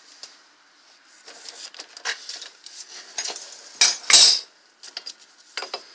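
Metal hand tools clinking and scraping as a wrench is worked onto a nut on a car's front suspension knuckle: a run of sharp metallic clicks, with a louder clatter about four seconds in.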